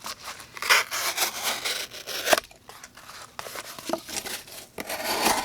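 Knife blade slicing through cardboard: a series of rough scraping, tearing strokes, with one sharp click about two and a half seconds in.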